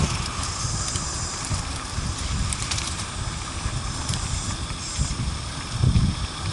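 Riding an ATV on a rough trail: uneven low wind rumble on the microphone with scattered knocks and rattles.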